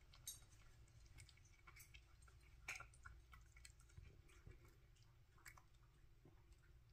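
Cat chewing dry kibble from a bowl: faint, irregular crunches and clicks.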